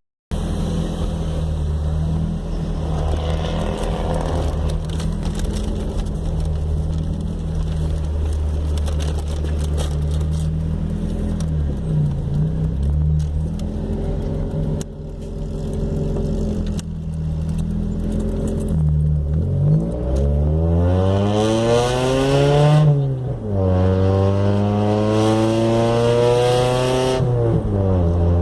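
Nissan Sunny 1.6-litre 16-valve engine running through a cut-down exhaust, its stock system removed and the pipe exiting on the right side ahead of the rear wheel. It idles steadily with a couple of light blips, then is revved up twice near the end, dropping back to idle each time.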